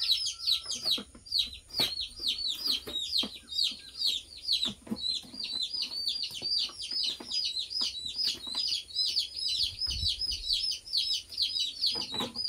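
Baby chicks peeping: a steady stream of short, high, falling peeps, several a second, from many birds at once. Scattered light clicks and knocks run under it.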